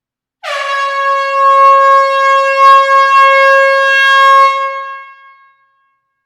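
Air horn giving one long, steady blast of about five seconds that tails off at the end.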